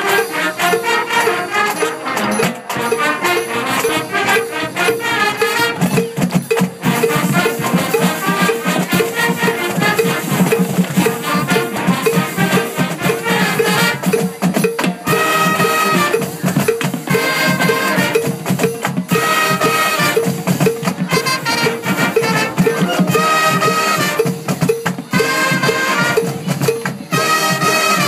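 Marching band playing in the stands: trumpets and sousaphones over a drumline keeping a steady beat. From about fifteen seconds in, the horns play short repeated riffs.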